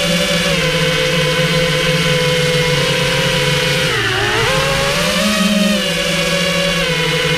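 Quadcopter's electric motors and propellers running steadily in flight, heard from the GoPro mounted on the craft. About four seconds in, the pitch dips and then climbs back as the motors change speed.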